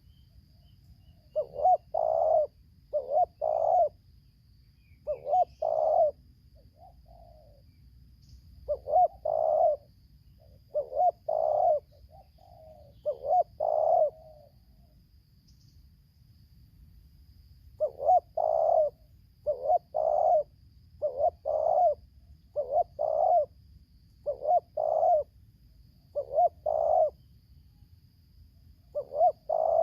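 Spotted doves cooing: short phrases of two or three low coos, given again and again with brief pauses, and one longer pause about halfway through.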